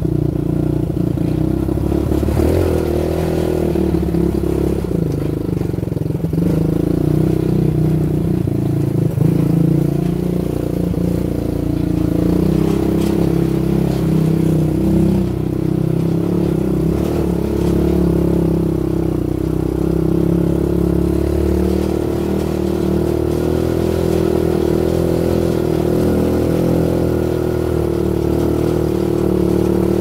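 Small ATV (quad bike) engine running while riding, its pitch rising and falling with the throttle. A few knocks and rattles come in the first several seconds.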